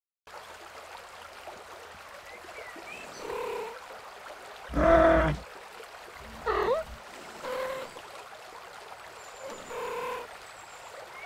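Cat vocalization sound effects: a series of short pitched meows and calls, the loudest and longest about five seconds in, one sliding up in pitch soon after. A steady background hiss runs under them.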